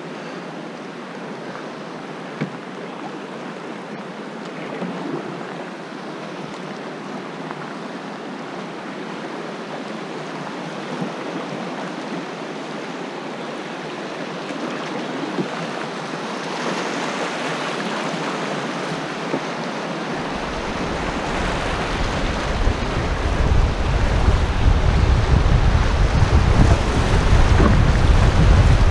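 Rushing whitewater of a fast glacial river around a canoe running rapids, growing louder as the boat picks up speed. From about twenty seconds in, wind buffets the camera microphone with a low rumble.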